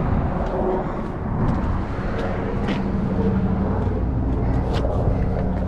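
Car engine idling, a steady low rumble with a constant hum.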